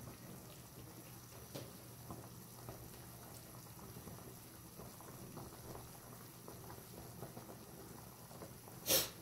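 Pot of chicken tinola broth at a rolling boil, bubbling softly with many small pops over a low steady hum. A brief loud noise near the end.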